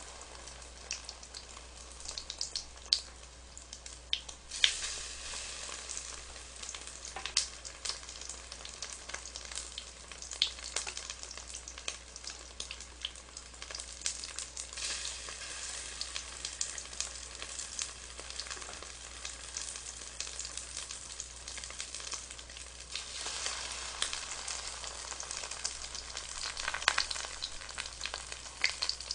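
Egg-battered mushroom slices frying in shallow oil: a steady sizzle with crackling that swells louder a few times, with a few sharp clicks.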